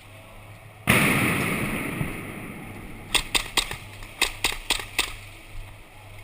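A sudden loud blast about a second in that dies away over about two seconds, followed by a string of about eight sharp pops of airsoft gunfire over two seconds.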